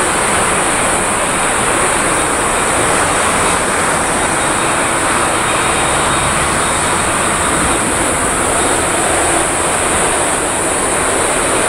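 A Boeing 787-10's twin Rolls-Royce Trent 1000 jet engines at takeoff thrust as the airliner lifts off and climbs out, a steady loud rush of jet noise. A steady high-pitched hiss runs above it.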